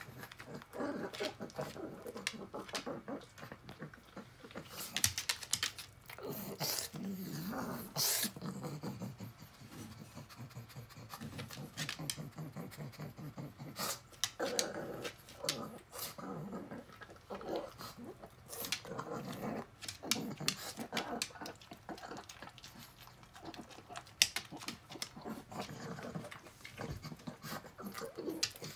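Elderly pug sniffing and snuffling with her nose to the floor and at a food bowl, in many irregular short breathy bursts.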